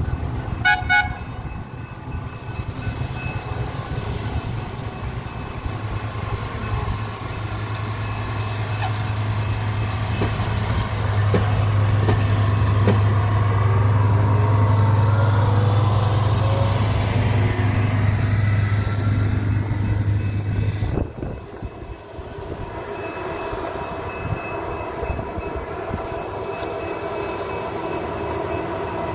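Short horn toots about a second in, then the diesel engine of a yellow rail-mounted track maintenance machine running as it passes close along the rails, growing louder toward the middle. The sound changes abruptly about two-thirds of the way through into a steadier hum as a second machine approaches.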